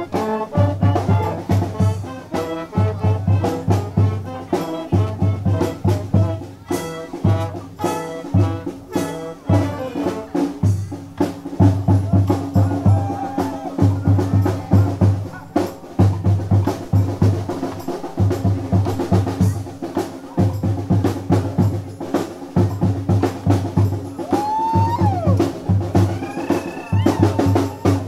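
Street brass band playing an afoxé groove: trumpets and trombones in chords over a pulsing bass drum and percussion. About ten seconds in the horns thin out and the drums carry on the beat, with a few sliding high notes near the end.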